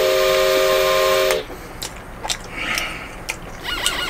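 Cartoon steam-whistle sound effect: a loud, steady whistle of several close tones over a hiss, lasting about a second and a half and cutting off sharply, added as a gag for a head steaming from spicy food. Then a few small clicks, and near the end a quick run of short twittering chirps.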